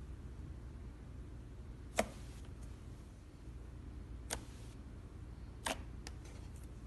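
Clear slime pressed and poked with a finger, giving three sharp pops about two seconds in, just past four seconds and near the end, over a low steady hum.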